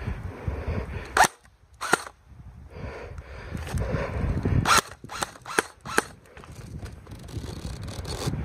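Airsoft gun firing: about six sharp shots, two a little over a second in, then four in quick succession around the middle, over a low rustling of movement.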